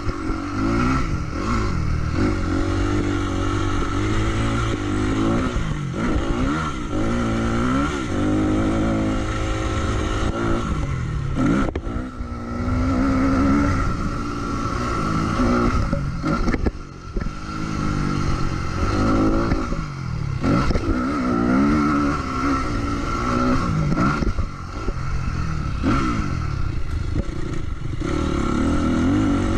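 Motocross dirt bike engine heard from the rider's own onboard camera, revving up and falling back over and over as the rider works the throttle and gears, with brief throttle-off dips. A steady high whine runs under it the whole time.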